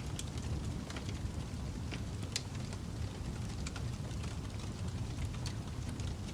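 Wood campfire crackling: scattered sharp pops and snaps, one standing out about two and a half seconds in, over a steady low rumble of the burning fire.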